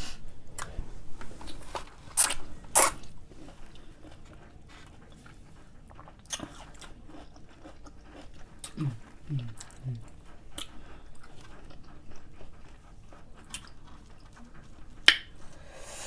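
Pickles being bitten and chewed: crisp crunches with wet chewing between them. The loudest are two crunches a little over two seconds in and another near the end.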